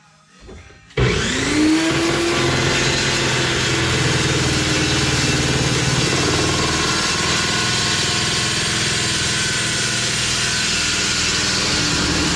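Abrasive power tool on steel channel: it starts suddenly about a second in with a rising whine as it spins up, then runs steadily and loudly, cutting or grinding the steel.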